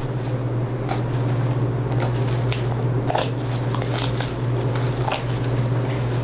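Boning knife slicing through fat and connective tissue in short, irregular strokes as the brisket is seamed away from a beef forequarter, over a steady low hum.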